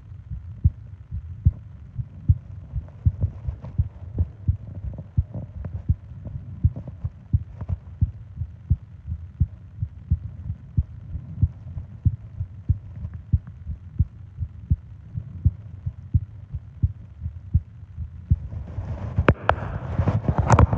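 A person's heartbeat recorded close up: steady low thumps, a little faster than one a second. Near the end a long breath comes in over the beats.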